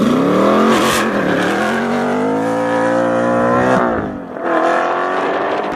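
Car engine revving hard under full acceleration, its pitch climbing steadily. The pitch drops abruptly at a gear change a little under four seconds in, then climbs again in the next gear.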